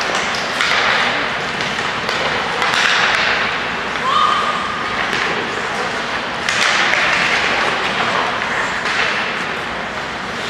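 Ice hockey play on an indoor rink: skates scraping the ice in swells, with sharp clacks of sticks and puck and distant spectators' voices. A short steady tone sounds about four seconds in.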